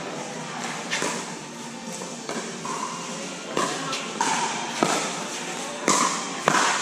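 A pickleball rally: about five sharp pops of paddles striking the plastic ball, roughly a second apart, echoing in a large indoor hall, with short sneaker squeaks on the court between hits.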